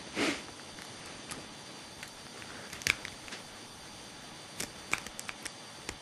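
Small sharp clicks and ticks of a lock pick and tension wrench working the pin tumblers of a Master Lock TruGuard 30 mm padlock, with a short scrape just at the start. The clicks come singly about three seconds in, then in a quick cluster near the end.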